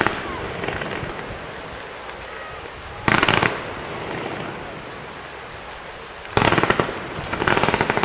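Fireworks going off: three short bursts of rapid crackling reports, one about three seconds in and two close together near the end.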